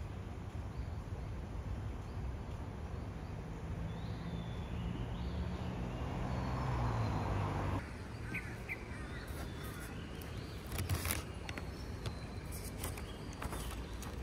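Birds chirping outdoors over a steady low hum. After a cut about eight seconds in, the chirps go on over the rustle and taps of notebook pages being handled.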